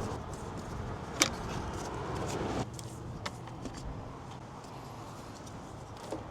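Hands working on a car's headlight assembly: one sharp click about a second in, then rustling and a few smaller clicks over a steady background hum.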